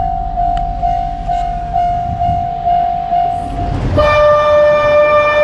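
Japanese railway level-crossing alarm ringing its repeating electronic bell, about two rings a second, over a low rumble. About four seconds in it stops and a held, horn-like note with overtones begins.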